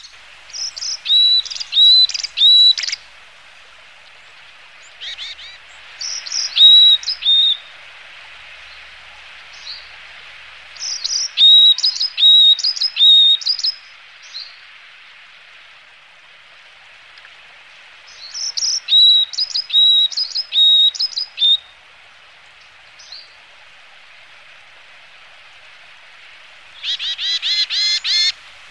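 Varied tits calling: five bouts of short, high chirping notes separated by pauses of a few seconds, the last bout a fast run of notes.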